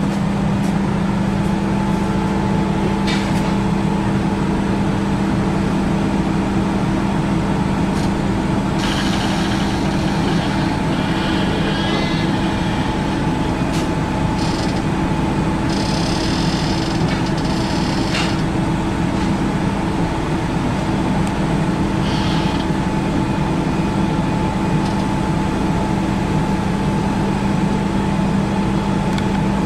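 Steady machinery hum of a biomass gasification plant, with several fixed tones over a rushing noise, and a few short bursts of hiss in the middle.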